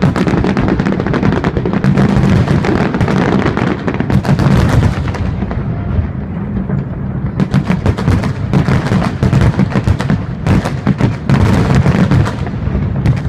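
Aerial fireworks shells bursting in a dense, continuous barrage of rapid booms and pops, thinning for a couple of seconds about halfway through before building again.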